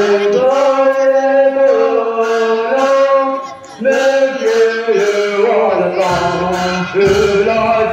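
Voices singing a slow Tibetan folk melody for a masked stage dance, in long held notes that step up and down. From about six seconds in, a deeper accompaniment fills in beneath the singing.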